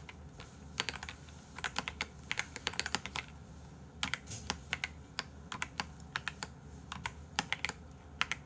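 Computer keyboard typing: runs of quick keystrokes in short bursts with brief pauses between them.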